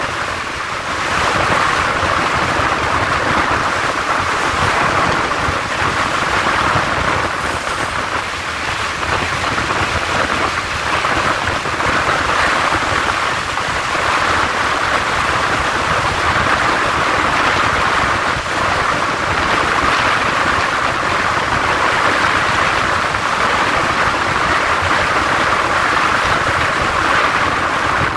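Steady rush of wind on the microphone, held out of the window of a moving passenger train, over the train's running noise.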